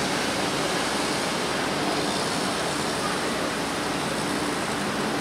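Steady, even rushing noise of city street traffic.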